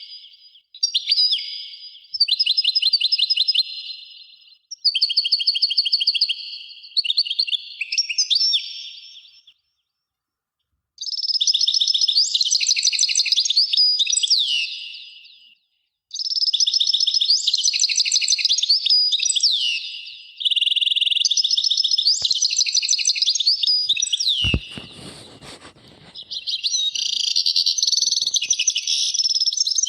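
Songbirds singing in phrases of rapid chirps and trills that last a few seconds each, with short breaks between them. About three-quarters of the way through there is a single knock followed by a brief low rumble.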